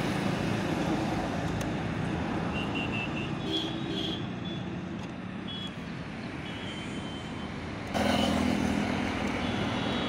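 Steady road traffic noise from passing vehicles, with a louder vehicle engine coming in about eight seconds in.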